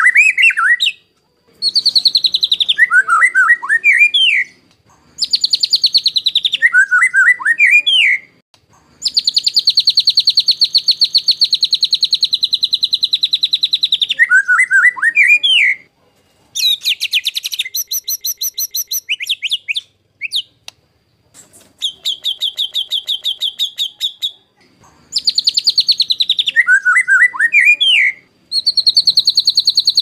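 White-rumped shama (murai batu) song in the harsh 'tembakan kasar' style used as training song for other shamas. Long runs of fast, evenly repeated rattling notes alternate with short swooping whistled phrases, the song breaking off and restarting after brief gaps, with the same phrases coming round again.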